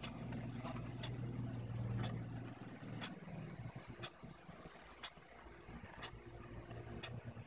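A timepiece ticking: sharp ticks about once a second over a low steady hum like an idling engine, which weakens about halfway through.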